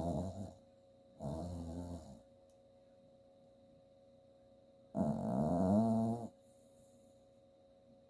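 Sleeping chihuahua–Jack Russell terrier mix snoring while she dreams: a pitched snore trails off just at the start, a second comes about a second in, and a longer, louder one at about five seconds.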